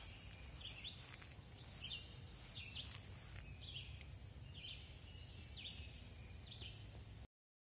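Quiet outdoor ambience: a bird gives a short chirping call over and over, about once a second, over a faint steady high whine and low background rumble. The sound cuts off abruptly near the end.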